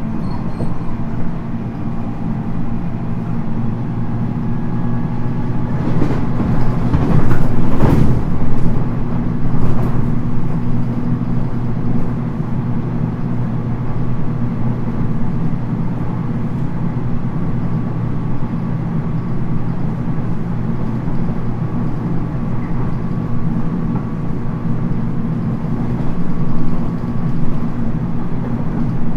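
Cabin running sound of a 719 series electric train: a steady low hum over wheel-on-rail rumble. A louder stretch of clattering rises about six seconds in and lasts several seconds.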